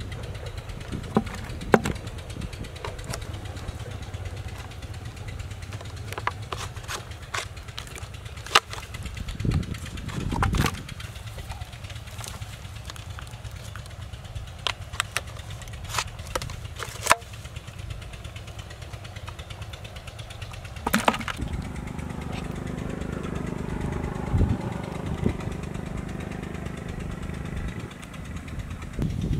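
Short plastic clicks and knocks as eels are shaken out of a PVC pipe trap and its plastic bottle funnel into a plastic bucket, over a steady low rumble.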